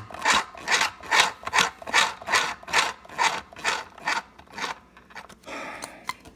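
Small sewing machine's needle mechanism cycling, a rasping stroke about two and a half times a second that fades and stops about five seconds in, as the machine is worked to try to pick up the bobbin thread.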